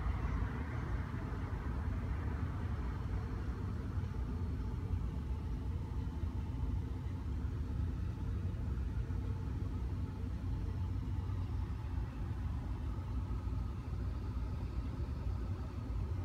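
Steady low rumble of outdoor city street noise, with vehicle traffic sounding in the background.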